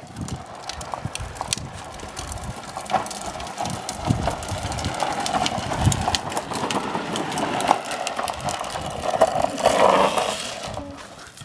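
A child's bicycle rolling over the ground with a steady rumble and many small rattles and clicks, growing louder to a skidding spin-out about ten seconds in, then fading.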